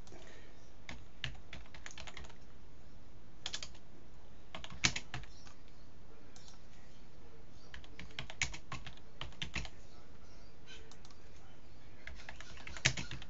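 Typing on a computer keyboard: short bursts of keystrokes with pauses between them, and a few keys struck louder than the rest.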